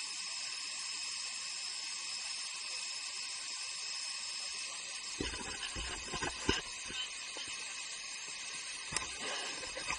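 Steady hissing rush of a waterfall pouring into a pool. A few dull thumps come about halfway through, and a sharp click comes near the end.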